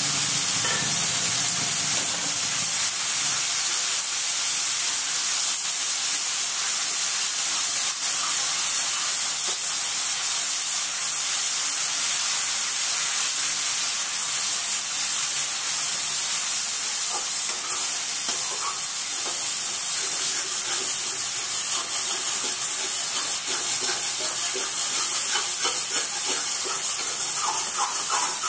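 Prepared spice masala sizzling in hot oil in a kadhai, a steady hiss. Near the end, a spatula scrapes and stirs it around the pan.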